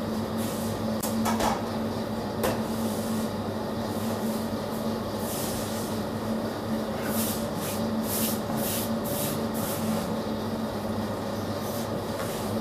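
Steady hum of kitchen machinery holding a few fixed low tones. A few short scraping hisses are laid over it, with two light knocks about one and a half and two and a half seconds in.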